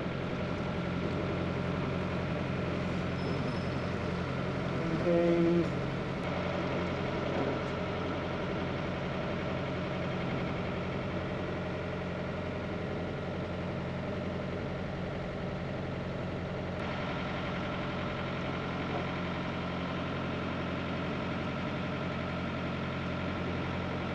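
Narrowboat engine running steadily while the boat cruises, an even hum that does not change. About five seconds in there is one brief, louder pitched sound.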